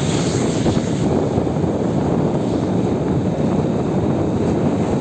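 Steady rumble of wind on the microphone and road noise on a wet road. In the first second a passing vehicle's tyres hiss on the wet surface.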